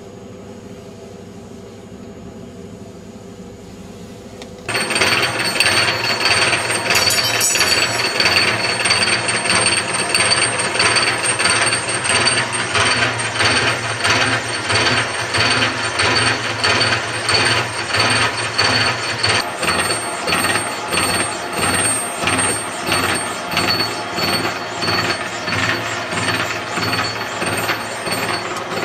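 Slotting head on a milling machine running, its ram driving the cutter up and down in a steady repeating stroke as it cuts slots in the bore of a steel gear blank. The loud cutting starts abruptly about five seconds in, after a quieter steady machine hum.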